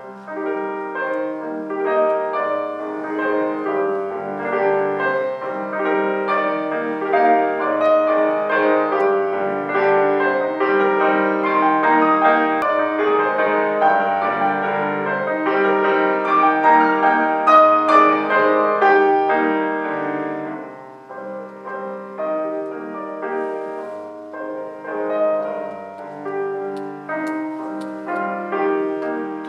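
Solo piano music, a flowing melody over chords, fuller and louder in the middle and thinning to sparser notes about two-thirds of the way through.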